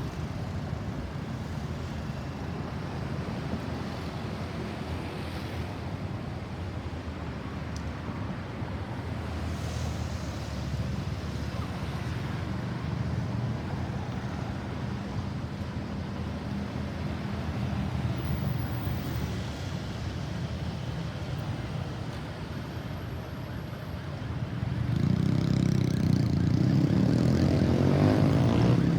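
Steady road traffic rumble from passing vehicles. About 25 seconds in it grows louder as an approaching ambulance's siren rises and falls over the traffic.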